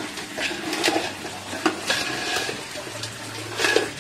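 Metal spoon stirring and scraping mud crab pieces in wet masala inside a metal pot, a run of irregular scrapes and knocks against the pot.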